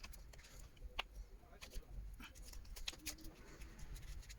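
A small pry tool scraping and clicking against a smartphone battery as it is worked loose from strong adhesive. It makes faint, irregular ticks and scrapes.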